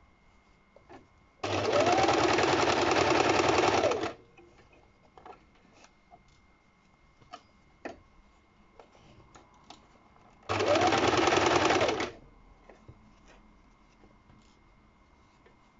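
Electric sewing machine stitching a seam through layered fabric in two runs, one of about two and a half seconds and a shorter one of about a second and a half, its motor pitch rising as it speeds up and falling as it stops. In between, small clicks and rustles of the fabric being handled and turned.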